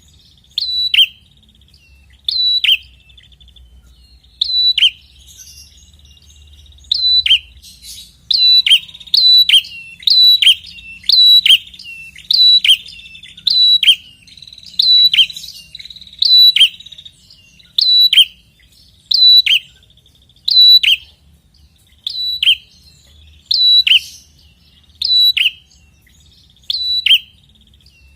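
A prenjak (prinia) singing loudly. Sharp, falling chip notes repeat about every second and a half, with a thin buzzing trill between them through the middle of the stretch.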